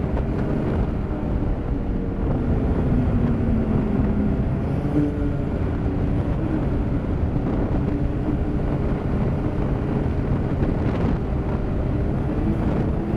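Ski-Doo MXZ snowmobile engine running at trail-cruising speed, with track and wind noise; the engine note shifts a little in pitch a few seconds in, then holds steady.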